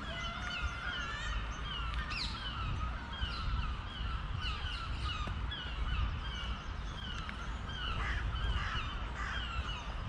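Many birds calling together in the treetops: a dense chorus of short, repeated calls sliding downward in pitch, overlapping throughout, over a low rumble.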